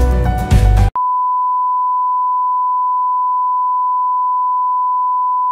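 Background music that cuts off abruptly about a second in, followed by a steady, unbroken test-tone beep of the kind that goes with TV colour bars.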